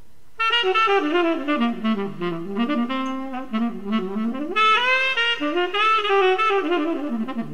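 Music played back from a vinyl LP: after a brief gap, a new phrase begins about half a second in, with a saxophone-like lead line sliding between notes over accompaniment.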